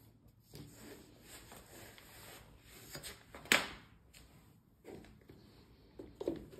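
Leather ankle boots being pulled on with a long shoehorn: soft rubbing and scuffing, with one sharp knock about halfway through, a boot heel set down on the stone tile floor, and a few small knocks near the end as the shoehorn goes into the boot.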